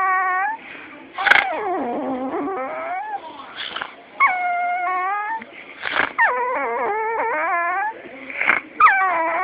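A dog making strange long whining howls, about five in a row with short gaps between them. Each call wavers in pitch, and the second slides steeply downward.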